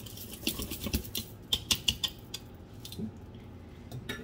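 Whisk stirring cake batter in a mixing bowl: a quick run of light clicks and taps against the bowl, thinning out to a few scattered taps in the second half.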